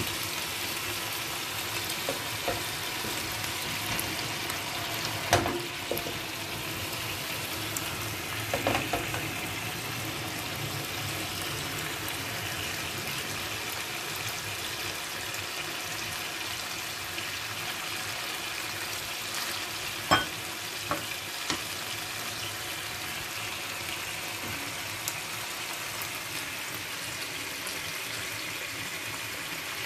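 Chicken thighs frying in a pan, a steady sizzling hiss, with a few short sharp clicks scattered through it.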